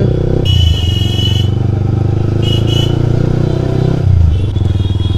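Sport motorcycle engine running steadily while riding, with a vehicle horn beeping twice: a beep of about a second starting half a second in, and a shorter one about two and a half seconds in. The engine note dips briefly about four seconds in.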